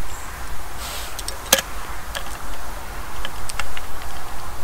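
Light clicks and ticks from a small metal-capped bottle being handled: a short hiss just before a sharp click about a second and a half in, then a few lighter ticks, over a steady low rumble.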